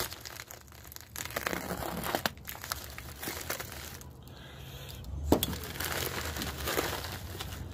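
A USPS Priority Mail envelope being torn open and handled, its wrapping crinkling and rustling in irregular bursts, with one sharp crackle about five seconds in.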